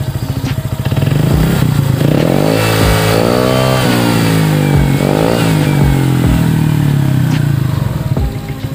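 Honda PCX 150 scooter's stock single-cylinder engine breathing through a Vario CMS muffler on a custom header pipe: idling, then revved up once for a second or two and let fall back, a short second blip a moment later, and back to idle.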